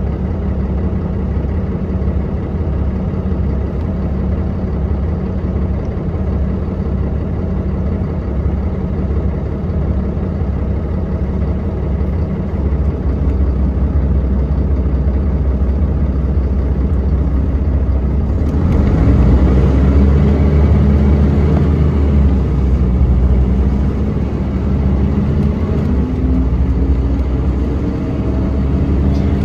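Mercedes-Benz O405NH bus engine heard from inside the cabin, idling steadily while the bus stands still. About two-thirds of the way through it grows louder as the bus pulls away, and the engine note climbs under acceleration.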